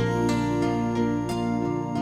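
Background music: gentle instrumental music with plucked notes.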